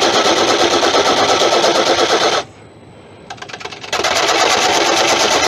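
A turning tool cutting the base of a monkey puzzle wood bowl spinning on a lathe, with a rapid, rhythmic knocking as the tool meets the soft pith on each turn. The cut stops about two and a half seconds in and starts again about four seconds in.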